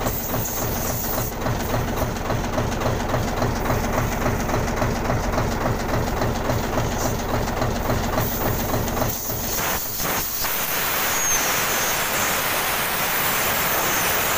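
Truck diesel engine running with a steady rhythmic beat, which drops away about nine seconds in; then a steady hiss of compressed air escaping from the loosened line fitting at the air tank. Air coming back out here is the sign of a leaking air compressor check valve, which the mechanic takes for a cause of slow air charging.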